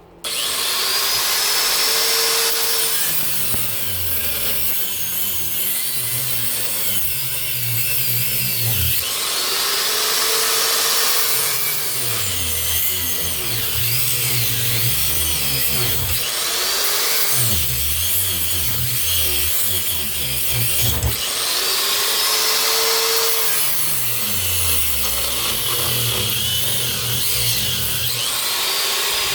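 Angle grinder switched on and cutting into the varnished copper windings of an electric motor rotor. It runs loud and continuous, its pitch sagging and recovering every several seconds as it bites into the copper.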